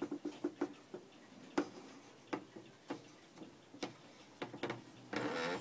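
German regulator wall clock ticking, its pendulum movement giving a run of sharp ticks. A brief louder noise of about half a second comes near the end.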